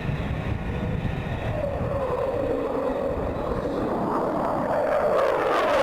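F-4 Phantom II jet fighter's twin J79 turbojet engines roaring in a flyby, growing louder toward the end as the aircraft passes closest.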